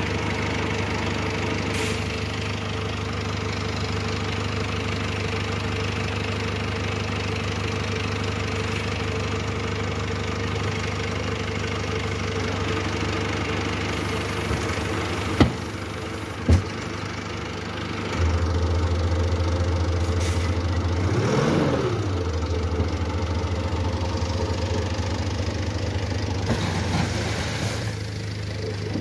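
BAW Fenix light truck's engine running steadily while the tipper body is raised on its hydraulic ram. About halfway through come two sharp metallic knocks, then the engine note grows louder and heavier as the hydraulics take the load, with a brief wavering whine a few seconds later.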